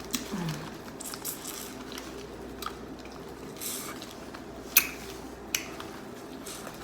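Biting and chewing corn on the cob: wet mouth smacks and sharp little clicks come at irregular moments, the sharpest one about five seconds in.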